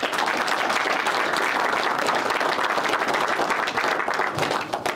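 Audience applauding: many hands clapping in a steady patter that stops near the end.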